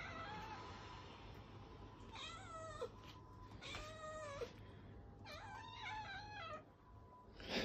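Abyssinian cats meowing at the owner, begging for wet food: several long, drawn-out meows that each bend up and then down in pitch. A short, louder sound comes right at the end.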